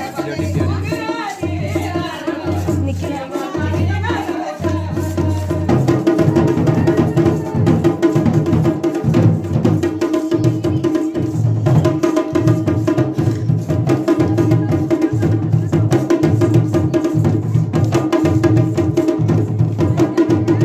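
Drum music with regular heavy drum strokes under a steady droning tone, and a wavering melody over it in the first few seconds. About five seconds in, the drumming gets louder and denser.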